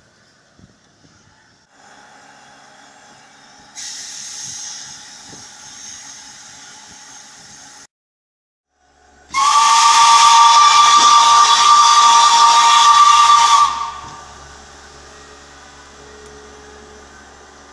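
Steam whistle of a Kp4 narrow-gauge steam locomotive giving one long blast of about four seconds: two close steady notes over a rush of steam, the signal for departure. Before it comes a few seconds of quieter hissing.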